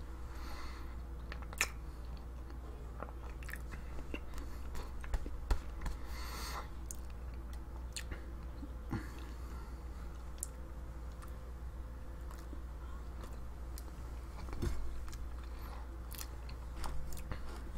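A person chewing a mouthful of peanut butter and jam sandwich close to the microphone, with irregular small mouth clicks. A steady low hum runs underneath.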